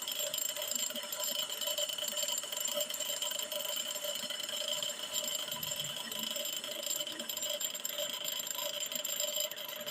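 Brake lathe running steadily while resurfacing a brake drum: an even, continuous machine whine with a light metallic rattle.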